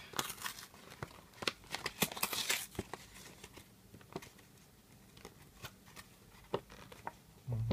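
Cardboard backing of a blister pack tearing and its plastic blister crinkling as it is pulled apart by hand, in scattered crackles that are busiest in the first few seconds and thin out after.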